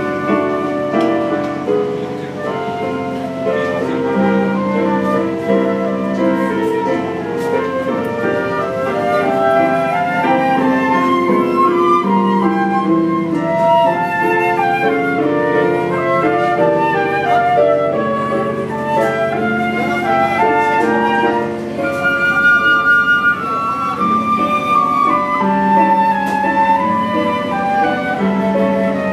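Two concert flutes playing a tune together over held chords from a Casio electronic keyboard.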